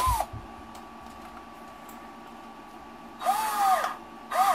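Small cordless drill/driver run in short trigger bursts to drive screws into an RC truck's skid plate. There is a brief burst at the start, a longer one about three seconds in and a short one near the end; each time the motor whine rises and then falls in pitch.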